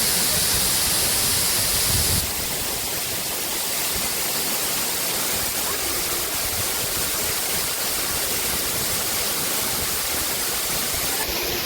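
Waterfall rushing: a steady wash of falling water that drops slightly in level and loses some of its hiss about two seconds in.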